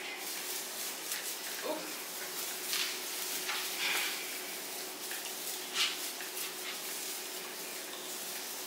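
Rustling and crinkling of a small white artificial Christmas tree's branches as they are bent and fluffed out by hand, with a few louder rustles in the middle.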